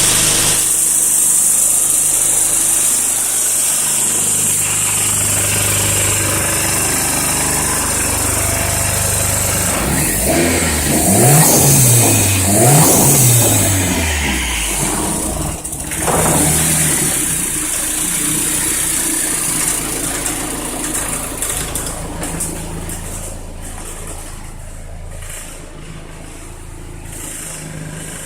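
Nissan 240SX engine idling roughly, the owner's complaint before an ECU tune. About ten seconds in it is revved twice in quick succession, blipped once more briefly, then settles back to idle.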